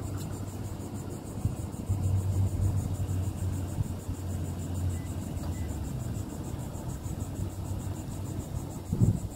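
A steady low hum inside the truck cab, with a faint, high, evenly pulsing insect buzz from outside. A short thump comes about nine seconds in.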